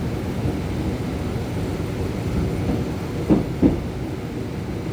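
Passenger train running on the rails, heard from on board as a steady low rumble. About three seconds in come two quick clacks, a third of a second apart, typical of wheels passing over a rail joint.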